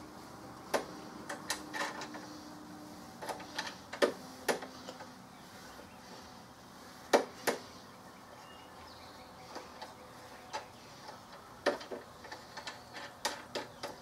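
Sharp clicks and clacks from a push mower's handle parts being fitted and fastened by hand, in irregular clusters with the loudest knocks about four and seven seconds in.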